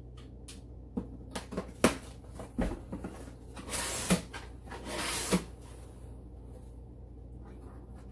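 Kitchen items and packaging being handled: a few sharp knocks and clicks, with two short spells of rustling a little past the middle.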